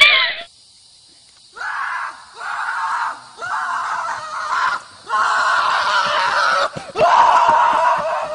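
A run of about five harsh, drawn-out screams, each half a second to a second and a half long, with short breaks between them.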